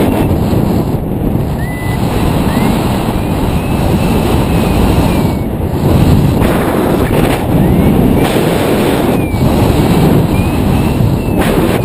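Wind rushing over an action camera's microphone during a paraglider flight, a loud steady roar that swells and drops in gusts. Faint short chirps, some rising and some falling, come through it every second or so.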